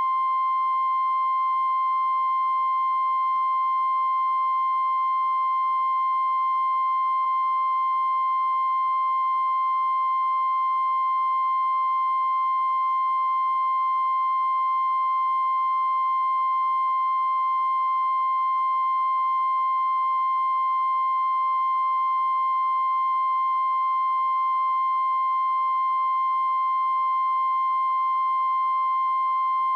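Steady, unbroken 1 kHz reference test tone of the kind that runs under broadcast colour bars, held at a constant level with faint overtones.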